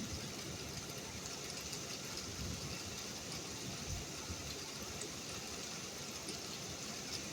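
Steady rain hiss with an uneven low rumble underneath.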